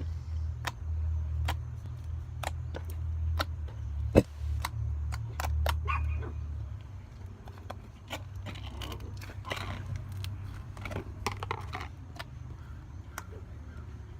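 Slime being poked and squished by hand: a scattered string of small clicks and pops with crackly squelches in the second half, and one sharp click about four seconds in. A low hum runs under the first half and then drops away.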